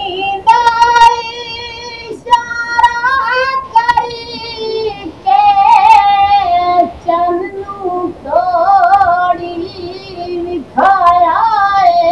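A man singing a naat, a devotional song in praise of the Prophet, solo and without instruments, in a high voice. He holds long notes with wavering ornaments across several drawn-out phrases, with short breaks between them.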